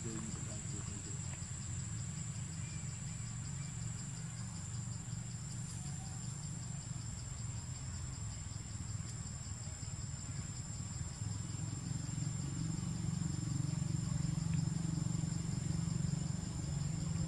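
Insects chirring steadily in a high, even tone, with a pulsing call a little lower, over a low rumble that grows louder in the second half.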